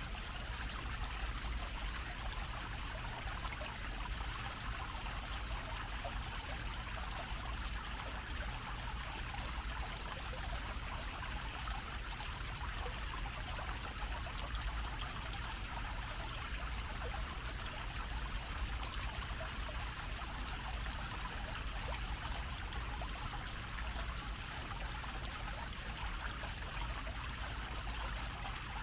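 Fountain water splashing steadily as a low dome-shaped jet falls back onto a grated basin: a constant, even rush of falling water. A low rumble runs underneath.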